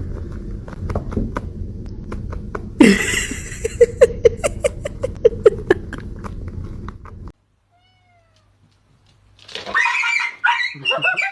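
A cat crying out: a sudden loud cry about three seconds in, then a quick run of short repeated calls over a low rumble that cuts off suddenly. Another pitched cry comes near the end.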